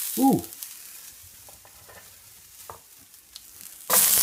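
Chopped broccoli, cucumber and carrot sizzling in a hot frying pan, the sizzle slowly dying down with a few light knocks of pieces against the pan. About four seconds in, the sizzle suddenly comes back loud as more vegetables go into the pan.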